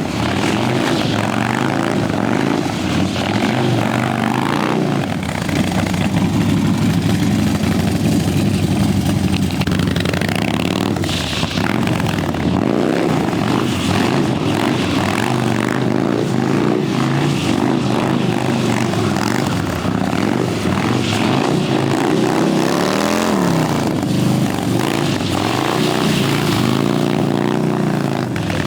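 Harley-Davidson motorcycle engine running hard and revving, its pitch rising and falling again and again.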